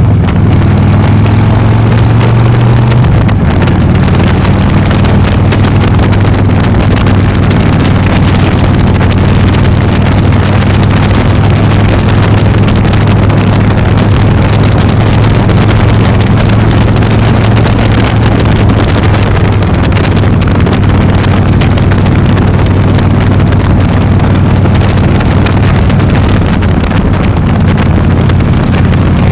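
Engine of a moving vehicle running at a steady cruise with a low drone, its pitch dropping slightly about three seconds in and then holding, with wind noise on the microphone.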